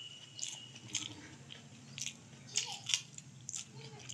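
Close-miked eating sounds: irregular wet clicks and crunches of chewing and of fingers mixing rice with dal and cabbage-potato sabzi on a plate. A faint steady high tone sounds during the first second.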